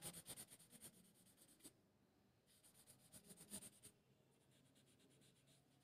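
Faint, rapid scratching of quick shading strokes on drawing paper, in two spells: one in the first second and another from about two and a half to four seconds in.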